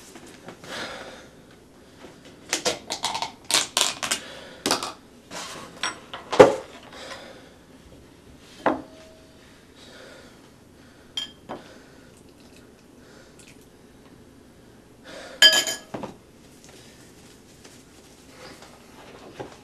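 Spoons clinking and scraping against cereal bowls, and a plastic tub being handled and set down, in irregular knocks and clatters. The sharpest knock comes about six seconds in, and a bright ringing clink of spoon on bowl comes about three-quarters of the way through.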